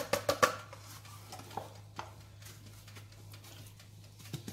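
A quick cluster of light clicks and taps from a yogurt pot of flour being emptied and tapped against a plastic blender jar, then a few single ticks, over a faint steady low hum.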